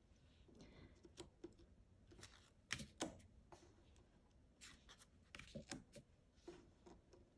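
Faint clicks and soft slides of oracle cards being set down one at a time onto a stack on a wooden table, about a dozen small handling sounds spread irregularly.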